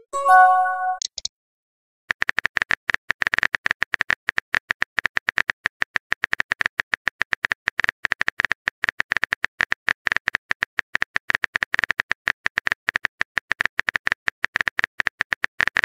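Phone keyboard typing sound effect: a fast, unbroken run of light key clicks, several a second, as a text message is typed out. A short chime of a few tones sounds at the start, before the typing begins.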